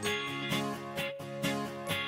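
Background music with an acoustic guitar and a steady beat of about two strokes a second.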